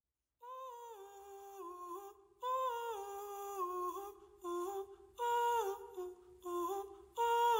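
A single voice humming a slow, wordless melody in short phrases of a second or so, with small slides between notes.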